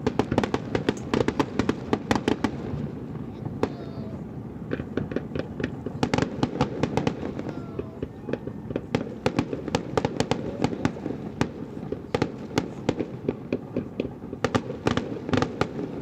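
Aerial fireworks display: rapid, overlapping bangs and crackling of shells bursting over a steady rumble, in several dense barrages.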